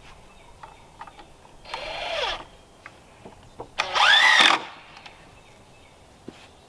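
Cordless drill driving screws into a wooden frame: two short runs, about two seconds in and again near four seconds, the motor whine rising and falling in pitch each time, the second run louder. A few light knocks of handling the wood between.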